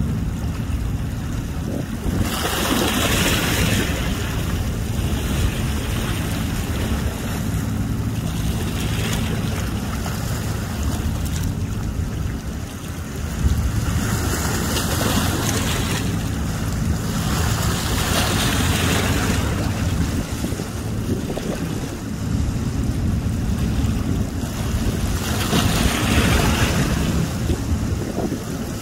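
River water splashing against a boat's hull, with surges every several seconds and wind buffeting the microphone. A low, steady engine hum runs underneath.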